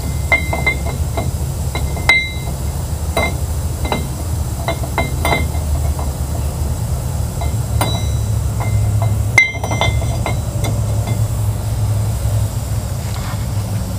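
Irregular metal clinks and light knocks with a brief high ring, as a steel knock-off wire-wheel adapter is handled and fitted over the wheel studs onto the hub. The loudest knock comes about two-thirds of the way through. A steady low rumble runs underneath.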